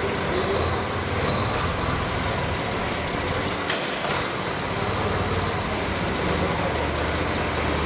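Old farm tractor's engine running steadily at low revs, with one sharp clank about halfway through.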